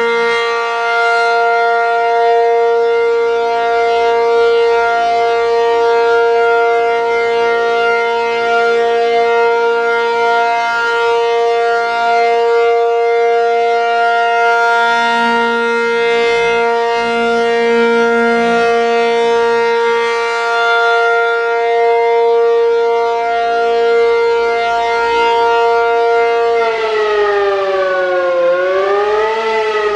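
ACA P-50 outdoor warning siren sounding a steady alert tone: one loud, held, buzzy pitch. About 26 seconds in, the siren starts to wind down, dips, rises briefly, and falls again near the end.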